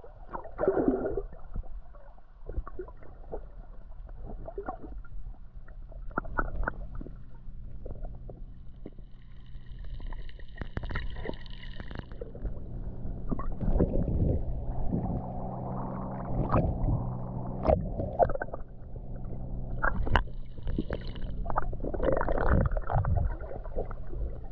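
Boat engine running with a steady low hum, with water gurgling and splashing irregularly against the hull.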